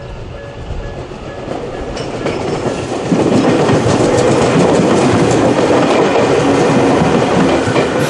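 Level-crossing alarm ringing in the Nikko-type pattern, a repeating electronic tone about twice a second. From about three seconds in, an electric train passes close by and drowns out the alarm with the rumble and clatter of its wheels on the rails.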